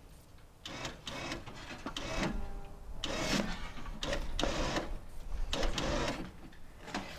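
Hand ratchet being worked in repeated strokes, each stroke a short burst of ratcheting clicks, roughly one every half second to second.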